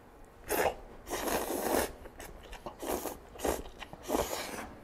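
A man slurping and chewing jjapaguri, instant black-bean-sauce noodles, from a bowl with chopsticks. There are about five short, noisy slurps with quieter chewing between them.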